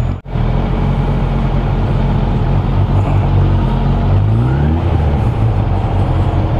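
Suzuki Bandit motorcycle's inline-four engine running at low speed, with a brief rising rev about four seconds in.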